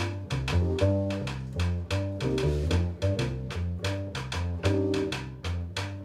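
Small jazz combo playing live: plucked upright double bass and drum kit with quick, sharp percussion clicks, alongside guitar and keyboard.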